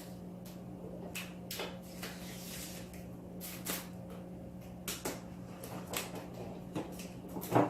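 Hands working the field lining tape onto the edge of a foosball table's playing field: about a dozen light clicks and taps at uneven intervals, over a steady low hum.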